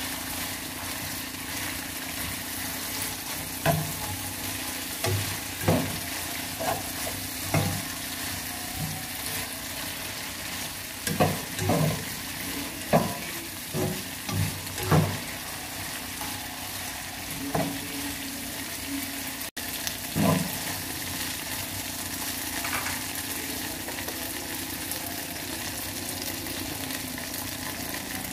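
Sausage pieces with onion and chilli sizzling in a nonstick wok, with the knocks and scrapes of a slotted spatula stirring them. The knocks are frequent from a few seconds in until about two-thirds of the way through, then only the steady sizzle remains.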